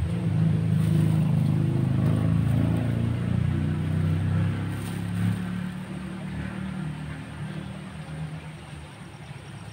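A motor engine runs, strongest over the first few seconds and then fading steadily, like a vehicle passing and moving away.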